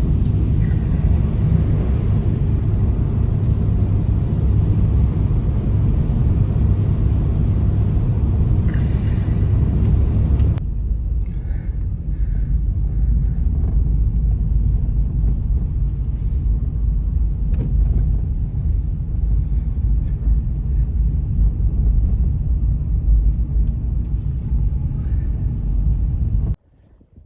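Strong snowstorm wind blowing, a loud steady low rumble. It changes abruptly about ten seconds in to a slightly duller stretch and cuts off suddenly near the end.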